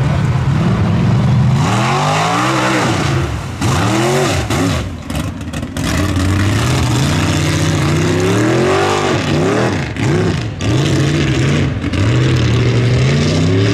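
Lifted one-ton class mud truck's engine revving in repeated rising and falling surges as it races on a dirt track, with a few brief dips where the throttle lifts.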